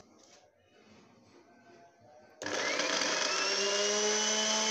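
Small electric chopper (mixie) starts about two seconds in and runs steadily, its motor whine rising slightly in pitch as it comes up to speed while grinding bread crusts into crumbs.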